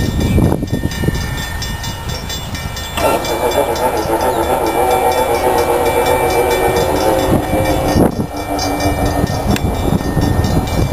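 Horn of an approaching Norfolk Southern freight train's lead locomotive, an SD70ACe. A steady chord starts about three seconds in and is held for about five seconds.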